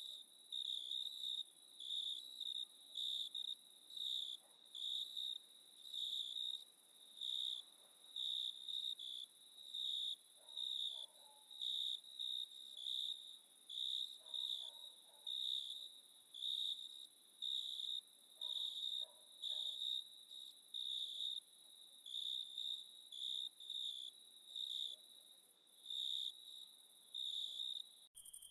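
Cricket chirping in a steady rhythm, about one and a half high-pitched chirps a second, over a continuous, even higher-pitched insect trill.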